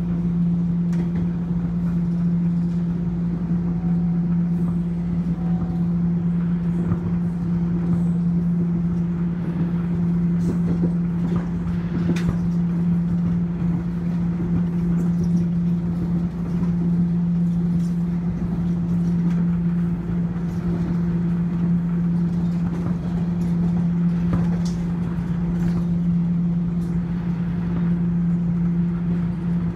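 Subway train running steadily at speed, heard from inside the car: a loud, constant low hum over a rumble, with scattered light clicks and rattles.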